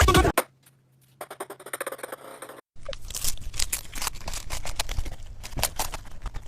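Background music cuts off just after the start. After a short silence come rapid, irregular small clicks and scrapes close to the microphone, growing denser after a brief break near the middle.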